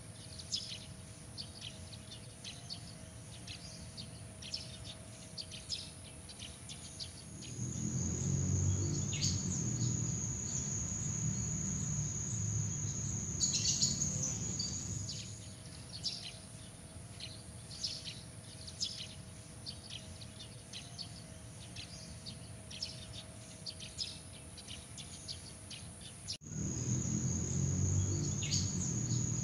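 Night-time insect chorus: crickets and other insects trilling steadily at a high pitch, with many short chirps over the trill. A low rumble swells in about eight seconds in and fades out by fifteen seconds. It comes back after an abrupt cut near the end.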